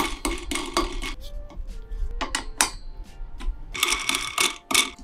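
Background music with crisp percussive hits over a deep bass.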